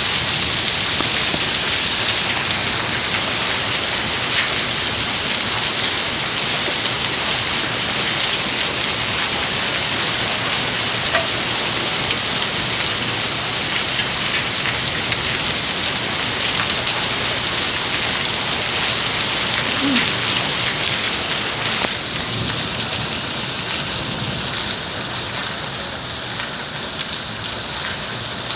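Hailstorm: hail and rain pelting down in a dense, steady hiss, with a few sharper ticks of hailstones striking standing out. It eases slightly near the end.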